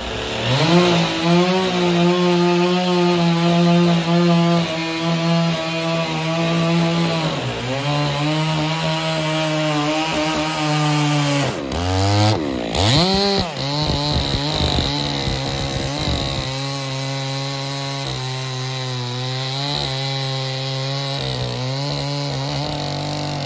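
Chainsaw running steadily while cutting wood. Its pitch dips briefly a third of the way in, then drops sharply and swoops back up about halfway through as the engine comes under load and recovers, before running on slightly lower.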